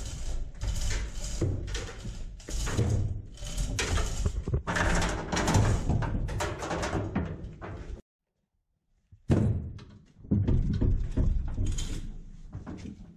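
Irregular metal clunks, knocks and rattles from work on a stripped pickup's cab and chains. The sound cuts off abruptly about eight seconds in and starts again a second later.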